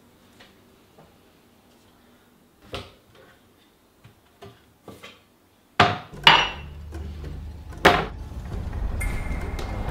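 Kitchen handling sounds: a few soft clicks and knocks, then three sharp knocks of wood and metal from about six seconds in, as a kitchen knife and wooden cutting board are handled. A low rumble sets in under the knocks.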